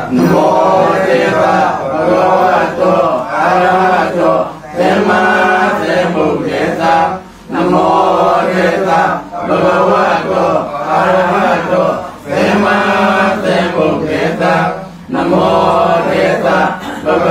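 Buddhist chanting by a male voice in a melodic, sing-song line. It comes in phrases of a second or two with short breaks between them.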